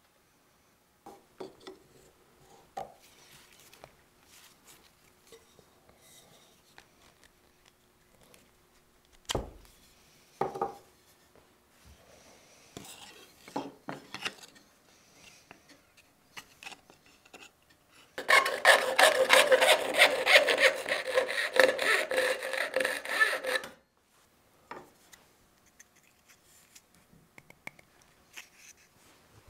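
Hand file rasping quickly back and forth across a wooden hammer handle for about six seconds in the second half, a loud, dense scratching. Before it come light handling sounds of wood on the workbench, with a sharp knock about nine seconds in.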